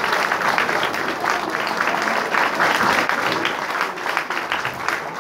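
Audience applauding steadily: a dense patter of many hands clapping at once, at the close of a brass band's piece.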